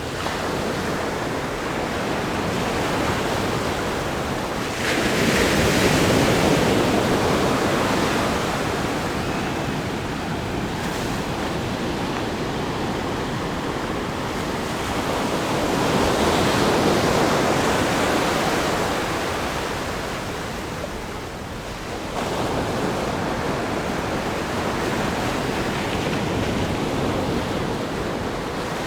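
Ocean waves breaking and washing against a rock groin, a continuous rush of surf that swells with each larger wave, about 5 seconds in, around 16 seconds, and again at about 22 seconds.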